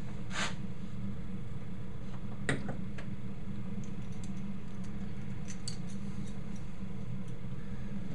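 Small handling sounds from soldering gear on a helping-hands stand: a short rustle near the start, a sharp click about two and a half seconds in, then a few faint light ticks, over a steady low hum.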